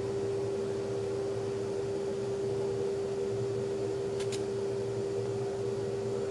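Spacer-application equipment running with a steady motor hum at one constant pitch. A brief sharp click about four seconds in.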